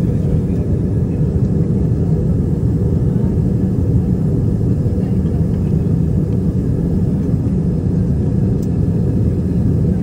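Steady cabin noise of a jet airliner in cruise: an even, low rumble of engines and airflow heard inside the cabin, without change.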